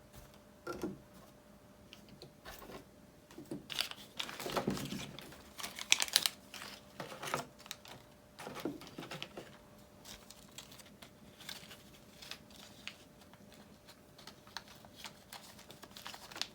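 Hands handling small hardware and packaging: plastic crinkling and rustling with light clicks of small parts. It is busiest from about four to seven seconds in, then thins to occasional clicks.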